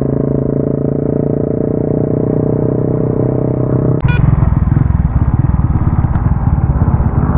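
Stock Euro Viperman 150 motorcycle engine running while riding, heard from the rider's seat: steady in pitch for about four seconds, then after an abrupt change it goes on rougher and noisier.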